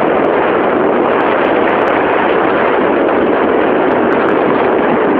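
Steady, loud rushing noise of travel in a moving vehicle: wind and road noise on the microphone, with no clear engine note.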